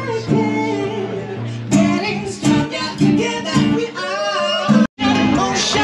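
A song with acoustic guitar and a singing voice. The sound drops out completely for an instant just before the end.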